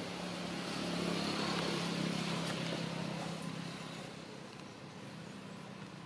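A motor vehicle's engine hum with road noise, swelling over the first couple of seconds and then fading away after about four seconds, like a vehicle driving past.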